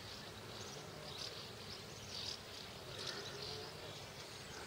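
Faint outdoor ambience: soft, irregular high-pitched chirps or buzzes repeating every half second to a second over a quiet background hiss.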